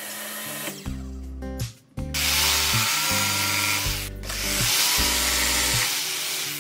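Corded jigsaw cutting a notch into 18 mm laminate-faced plywood, starting about two seconds in and running in two stretches with a brief pause just after the midpoint. Background music plays underneath.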